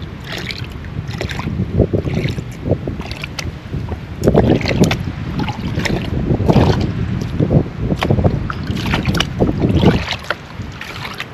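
Water sloshing and splashing as a plastic gold pan is dipped and swirled in a tub of water, washing light material off the black-sand concentrate. The swishes and splashes come about one or two a second and grow louder about four seconds in.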